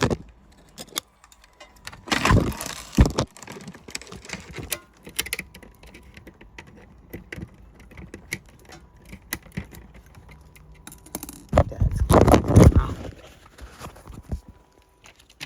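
A laminator's plastic casing and inner parts clattering and clicking as it is taken apart by hand. There are two louder stretches of rattling, about two seconds in and about twelve seconds in.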